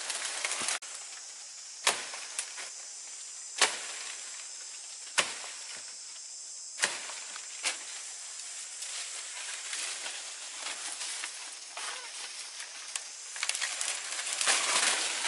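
Steady high insect hiss, with sharp snaps about every second and a half in the first half. Near the end comes a burst of crackling as dry, dead banana leaves are grabbed and pulled by hand.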